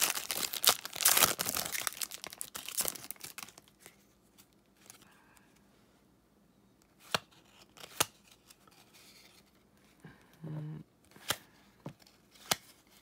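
Foil wrapper of a basketball card pack torn open and crinkled for the first three seconds or so. Then quiet, with a few sharp clicks as the cards are handled.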